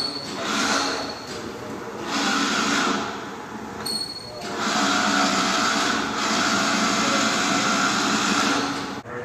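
Gearbox pressure-testing machine running in three bursts with a whirring hiss, the last and longest lasting about four seconds before it cuts off sharply.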